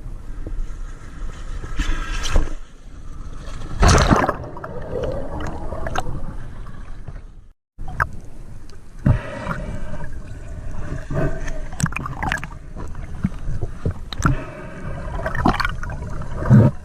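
Water gurgling and sloshing in irregular swells and splashes, as around a camera at or under the water surface.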